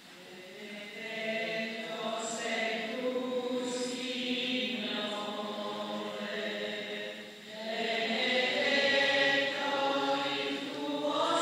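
Voices singing a slow hymn in long held notes, the offertory hymn at the preparation of the gifts during Mass. The singing grows louder about eight seconds in.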